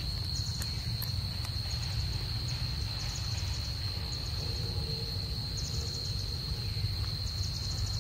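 Forest insects: a steady high-pitched drone with four short bursts of rapid, trilling chirps above it, over a low steady rumble.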